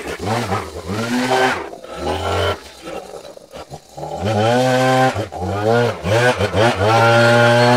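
Maruyama backpack leaf blower's engine being throttled up and down in short revs, then held steady at high speed near the end.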